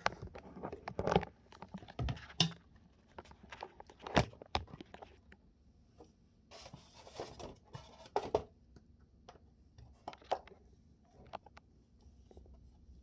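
Handling noise: the phone fumbled and set in place, then scattered clicks and knocks and a short stretch of rustling scrape about seven seconds in as the toothbrush is taken out of its foam packing insert.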